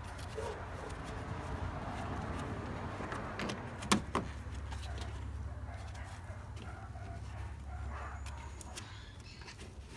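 Gloved hand working at the back of a car headlight housing in the engine bay: handling noise and two sharp clicks close together about four seconds in, over a steady low rumble.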